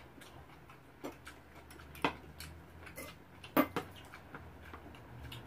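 Spoons and chopsticks clinking and tapping against bowls: a handful of light, scattered clicks, the sharpest about three and a half seconds in.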